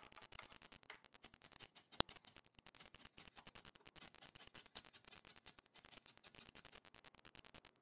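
Kitchen knife tapping on a wooden cutting board in quick, faint clicks while slicing vegetables, with one sharper knock about two seconds in.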